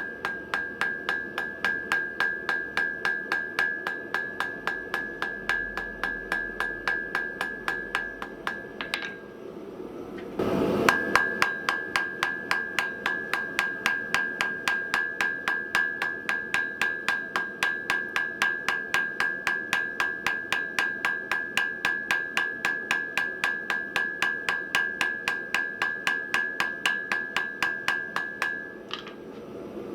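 Hammer blows on hot round steel stock on an anvil, drawing out a point, in a steady rhythm of about three blows a second with the anvil ringing at each strike. The hammering stops briefly about ten seconds in, with a short louder rustle, then resumes at the same pace until just before the end.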